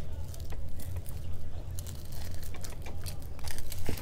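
Close-up eating sounds: crusty garlic bread being bitten and chewed, a scatter of small crunches and clicks, over a steady low hum.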